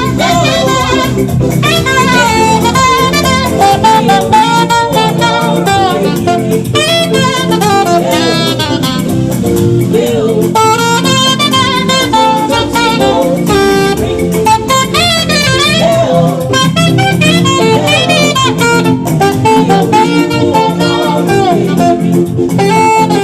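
Instrumental gospel-jazz music: a saxophone plays a lead melody with quick runs and bends over guitar and drum kit.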